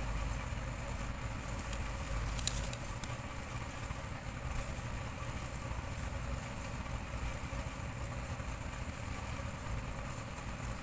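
Steady low background rumble with a faint hiss, like distant traffic or a machine running in the room, with a couple of faint light ticks about two and a half seconds in.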